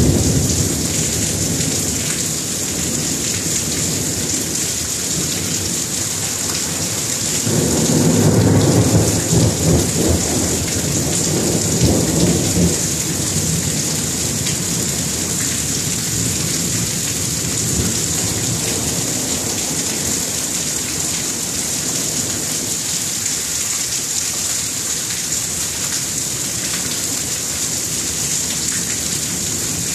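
Thunderstorm: steady heavy rain hissing throughout, with thunder rumbling, loudest from about seven to thirteen seconds in.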